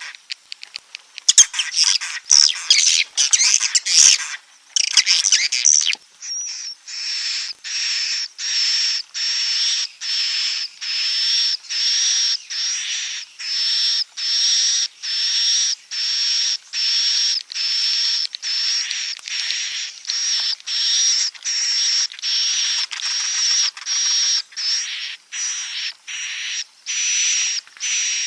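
Edible-nest swiftlet roosting ('inap') calls: a jumble of high twittering chirps for the first few seconds, then a steady run of evenly spaced buzzy chirps, about one and a half a second, each with a high thin tone.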